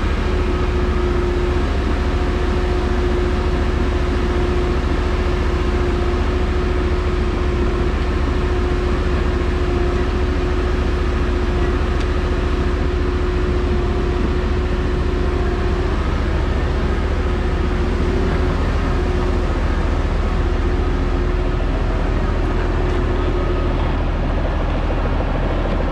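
Heavy diesel engine running steadily at a constant speed, a deep rumble with a steady hum over it.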